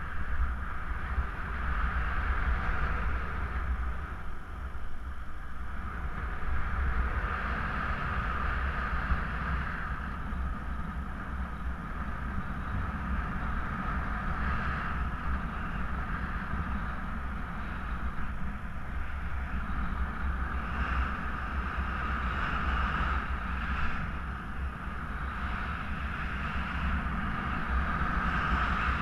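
Wind rushing over the microphone of a camera carried by a paraglider in flight: a steady low rumble of buffeting with a hissing whoosh that swells and fades every few seconds.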